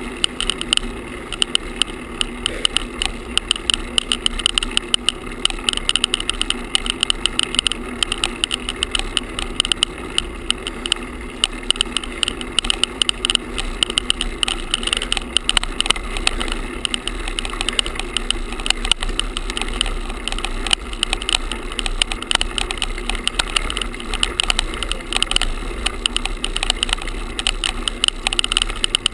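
Vibrating noise from a GoPro camera tied to a moving bicycle with a shoelace: a constant rapid rattle of the camera against its loose mount as the bike rolls over the road.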